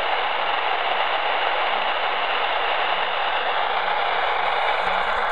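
Shortwave receiver's speaker giving a steady hiss of static, with a faint wavering tone beneath it.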